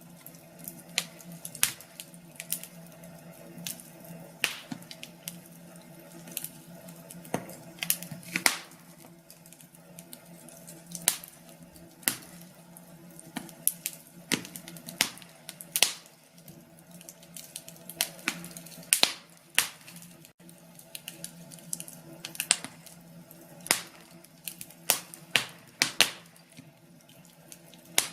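Wood fire burning in a fireplace, crackling and popping at irregular intervals, with a low steady hum underneath.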